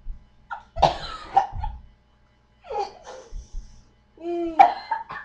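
A person coughing and choking in three bouts on a mouthful of dry ground cinnamon, the typical reaction in the cinnamon challenge.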